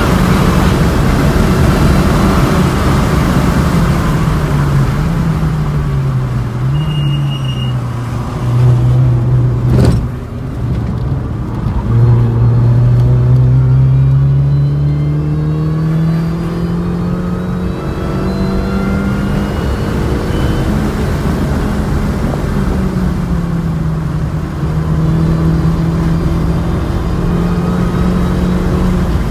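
MINI Cooper S R53's supercharged 1.6-litre four-cylinder engine revving hard on track. Its pitch climbs under acceleration and drops at each shift or lift, with a long steady climb about twelve seconds in. There is a single sharp knock about ten seconds in.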